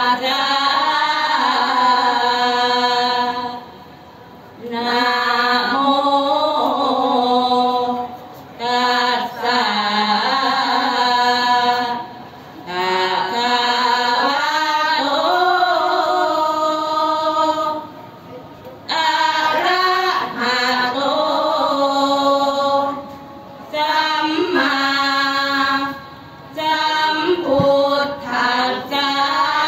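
A women's group chanting sarabhanya, Thai Buddhist verse sung together in a slow melodic chant. It comes in phrases of a few seconds with short breaks between them.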